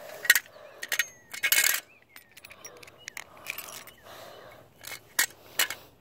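Sharp metal clicks and clinks, with a short scrape about a second and a half in, as a fire alarm pull station is opened with its reset tool.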